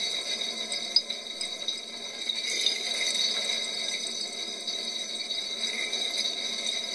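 Dishwasher washing: water from the spray arms splashing steadily against the dishes and the inside of the tub, with a sharp tick about a second in.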